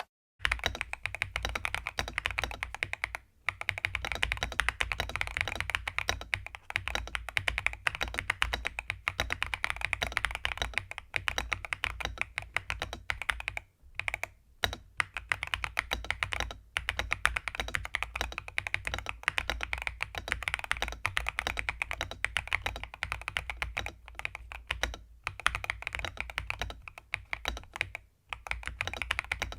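Continuous fast typing on a Royal Kludge mechanical keyboard fitted with pre-lubed Gateron Smoothie linear switches, a dense run of keystrokes that sounds creamy and thocky, broken by a few brief pauses.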